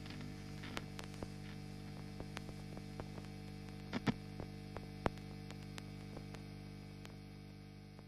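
Low steady electrical hum with scattered crackling clicks, a few of them sharper around the middle, easing down near the end.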